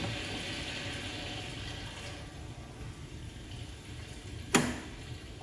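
Water running steadily through the laser welder's water cooling system, with a single sharp click about four and a half seconds in.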